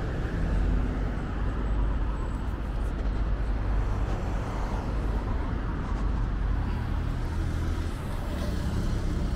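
Road traffic: cars passing on a multi-lane city highway, a steady traffic noise.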